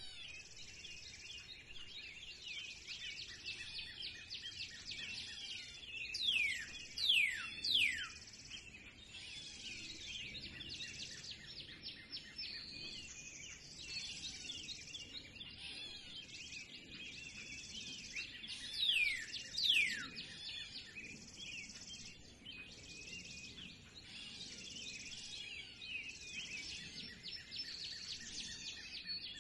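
Spring bird chorus: many birds chirping and twittering together without a break. Over it, one bird gives loud, steeply falling whistled calls in runs of two or three, about six seconds in and again near the twenty-second mark.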